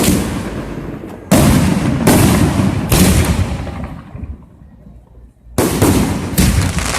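Fireworks going off: a string of loud bangs, each dying away in a rumble over about a second. Two come close together in the first seconds, then a third, then a pause of about a second and a half before two more near the end.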